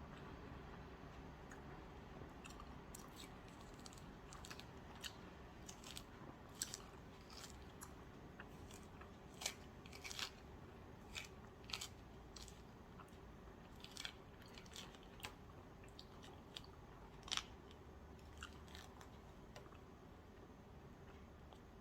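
Faint, irregular small clicks and crackles over quiet room tone, scattered through most of the stretch, with one sharper click towards the end.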